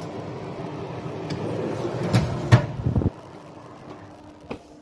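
Oven fan running with a steady hum, then a few knocks and clatters of the metal tray and oven door about two seconds in; the fan hum cuts off suddenly about three seconds in, and one more light knock comes near the end.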